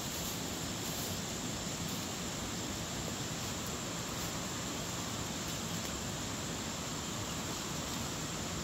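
Steady insect chorus in outdoor ambience: an even, unbroken hiss with a high steady buzz.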